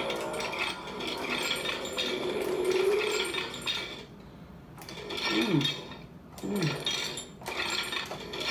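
Hard plastic parts and packaging of a toy replica gauntlet being handled and fitted together, with irregular light clattering and clinking.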